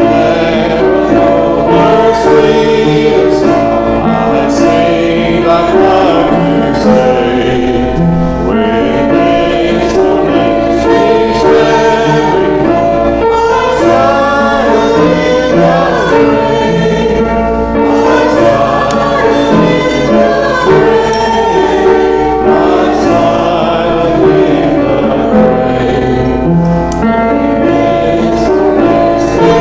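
A choir singing a hymn, with steady, continuous singing throughout.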